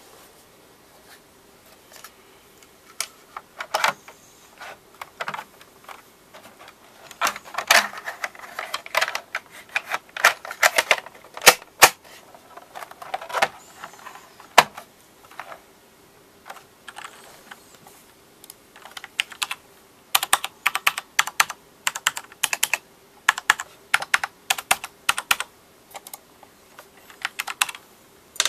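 Typing on an Owltech mechanical keyboard with Cherry MX Black linear switches: sharp keystroke clacks, scattered single strokes at first, then bursts of fast typing with pauses between.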